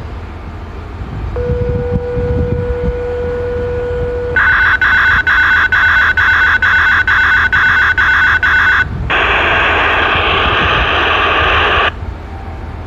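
Wideband radio receiver tuned to a municipal disaster-prevention radio channel, sounding its signalling after the broadcast. First a steady tone, then a loud run of rapid beeps at about three a second. Then a burst of static hiss that cuts off suddenly, as the transmitter's carrier drops.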